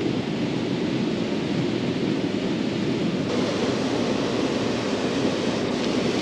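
Wind buffeting the camera microphone: a steady, even rush with no distinct sounds in it.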